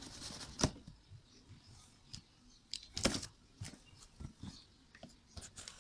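Faint handling noises: scattered light clicks and taps as things are picked up and moved, with a sharper knock about half a second in and another about three seconds in.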